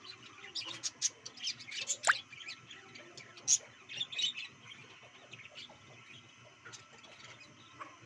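A small flock of budgerigars chirping and chattering: many short, high chirps, thick for the first four seconds or so and then thinning out, with one sharp rising call about two seconds in.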